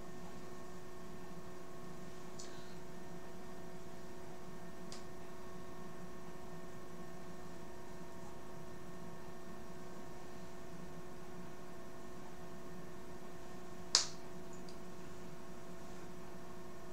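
Steady electrical hum made of several held tones, with a single sharp click about 14 seconds in and two fainter ticks earlier.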